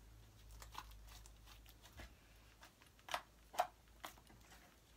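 Butter slime being stretched and kneaded by hand, giving small scattered crackles and clicks, with two louder snaps a little after three seconds in.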